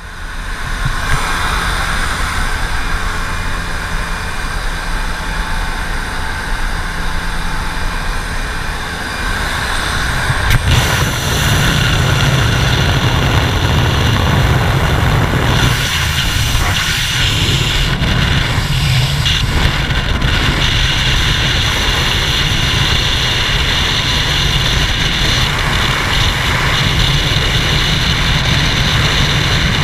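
Aircraft engine drone and wind rushing through the open jump door. About ten seconds in the wind noise grows louder and lower as the skydivers move out of the door into the airflow, then runs on as heavy wind buffeting on the helmet camera in freefall.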